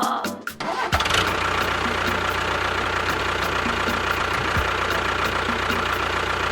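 An engine idling steadily with a regular knocking tick about four times a second. It settles in about a second in, after a few sharp clicks.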